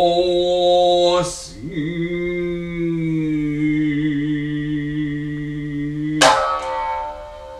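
A man chanting in long held notes, in the style of Heike biwa narrative chant: one note, a short breath about a second in, then a second long note held with slight wavering. About six seconds in, a biwa is struck once with its plectrum and rings out.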